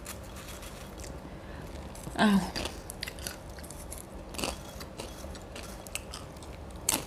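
A person eating popcorn, with scattered crisp crunches as they bite and chew, and a brief voiced "mm" about two seconds in.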